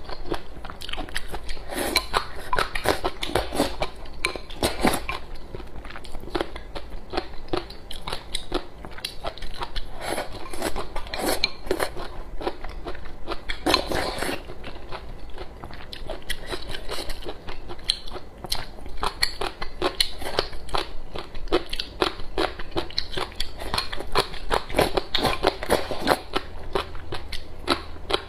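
Crunching and chewing of crisp pickled papaya shreds, a dense run of small crunches, mixed with rice porridge slurped from a bowl.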